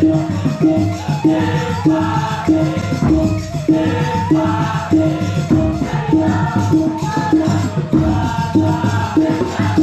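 Balinese kecak chorus of young men chanting interlocking rhythmic 'cak' calls, over a short low note repeating about twice a second, with sung melodic lines above.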